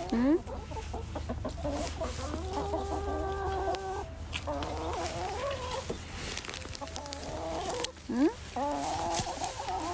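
Backyard chickens clucking, with a long drawn-out call in the middle.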